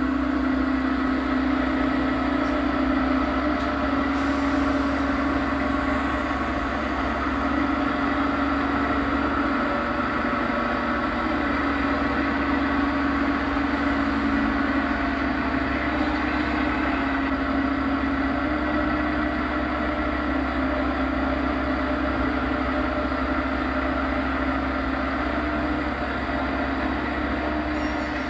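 A diesel engine idling steadily, with a constant hum that shifts slightly in pitch now and then.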